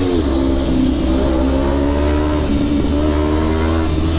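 Kawasaki Ninja 300 parallel-twin engine under way, its pitch dropping at an upshift right at the start and again near the end and holding fairly level in between, over a steady low rumble of wind on the helmet microphone.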